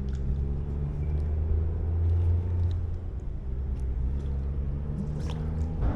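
An engine running with a low, steady rumble that swells about two seconds in and then eases off.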